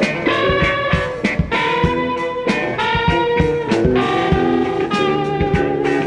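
Live rock band playing an instrumental break: a lead guitar holds and bends long notes over bass guitar and drums.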